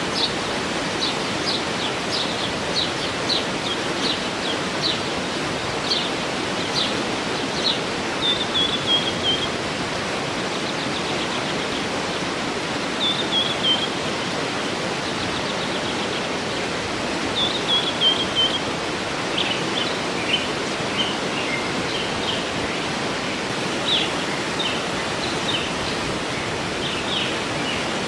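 Steady rush of a waterfall with birds singing over it: many short high chirps, and three falling trilled phrases.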